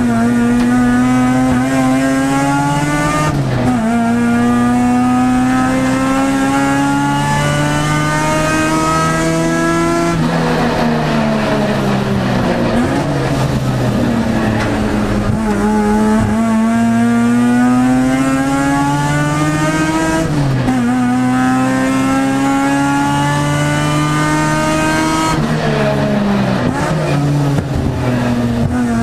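Mazda RX-7 race car's rotary engine heard from inside the cabin, pulling hard with its pitch rising through the gears and dropping sharply at upshifts about three and ten seconds in. Around the middle it falls away in pitch as the car slows for a corner, then climbs again with two more upshifts near the end.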